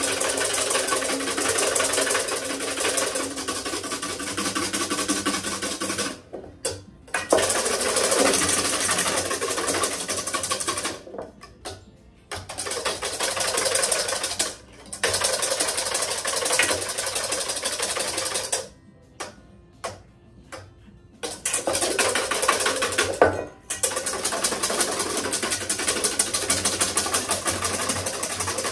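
Balloon whisk beating egg whites by hand in a stainless steel bowl: a fast, steady clatter of wire against metal as the whites are whipped toward stiff peaks. The whisking stops briefly several times, longest for about two seconds past the middle.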